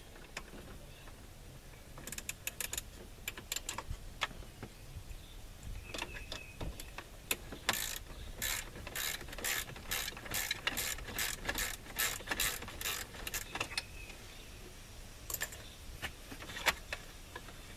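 Socket ratchet wrench with a 7mm socket clicking as it turns a small fastener. A few scattered clicks come first, then a steady run of about three clicks a second through the middle, then a few more near the end.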